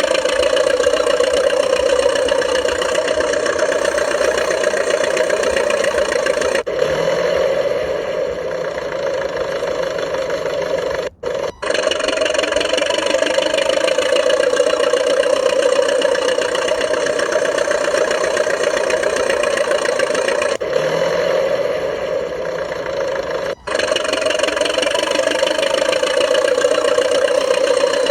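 Radio-controlled DT-54 bulldozer model running steadily under load with a constant mechanical hum. The sound drops out abruptly for a moment a few times.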